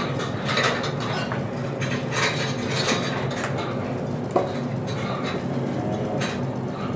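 Irregular scraping and clattering of hand work at a cow's tie-stall, with one sharp knock about four and a half seconds in, over a steady low hum.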